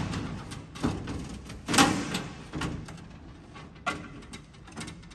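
Scattered metallic knocks and rattles, about five over a few seconds, from a perforated stainless mesh grille insert being pushed and bumped into place in a truck's grille shell.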